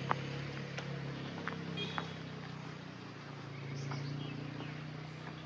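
An engine running steadily nearby, its hum swelling and fading, with a few sharp clicks and some short high bird chirps.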